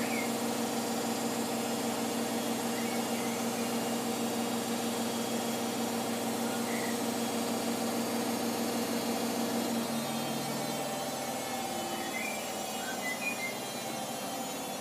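Hoover Optima washing machine on its final high-speed spin at 1300 rpm: a steady motor whine over the drum's running noise. About ten seconds in the whine changes and the sound eases slightly.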